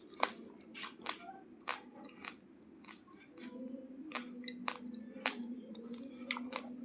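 Raw basmati rice grains being crunched between the teeth: about a dozen short, sharp, irregular crunches.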